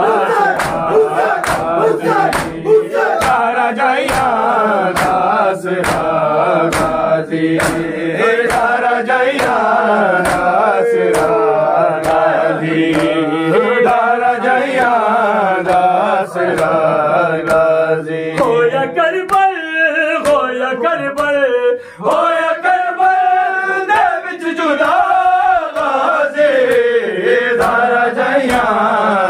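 Male voices chanting a nauha, a Muharram mourning lament, in long wavering lines. A steady beat of sharp slaps runs under it, about two a second: the matam of the mourners striking their chests.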